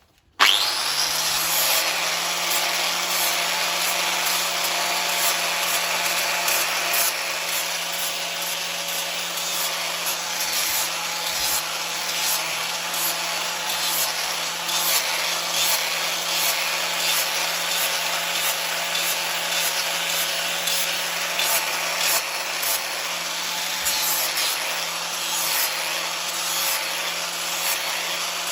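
An electric power tool spins up about half a second in and then runs with a steady motor whine. Throughout, there is a continuous rasping noise as it grinds down the rough edge of an old steel spanner.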